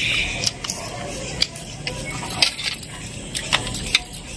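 Eating by hand from a banana leaf: crunchy chewing and fingers mixing rice on the leaf, heard as irregular sharp clicks and crackles over a soft rustle.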